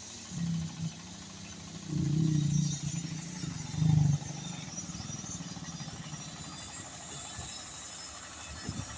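An engine running at idle, revved up briefly three times in the first four seconds, then settling back to steady running.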